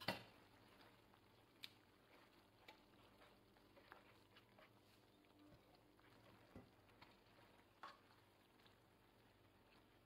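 Near silence broken by a few faint clicks and taps of kitchen utensils. The sharpest comes right at the start, as a metal grater is set down on a plate; softer taps follow while the sauce in the frying pan is stirred with tongs.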